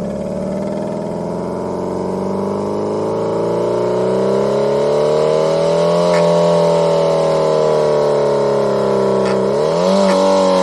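Homemade optical engine-sound generator, with lasers and photosensors reading a slotted spinning disc, producing a simulated equal-length-exhaust four-cylinder engine note modelled on a Subaru EJ20. The pitch climbs steadily as the revs rise over about six seconds, eases slightly, then dips and surges back up near the end.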